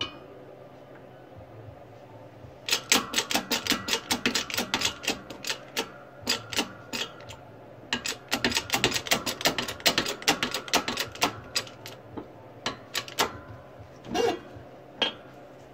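Hydraulic shop press being pumped: two long runs of rapid clicking, several a second, as the ram comes down to press a rocker block onto its shaft. A single heavier knock comes near the end.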